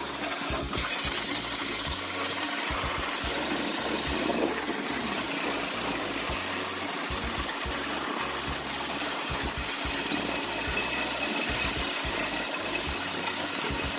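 A motor-driven machine running steadily with a strong hiss, cutting off abruptly at the end.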